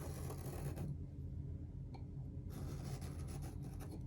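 Pencil scratching on cardstock as it traces a circle around the base of a pot, in two strokes: one for about the first second, then a pause, then a longer stroke from about two and a half seconds in.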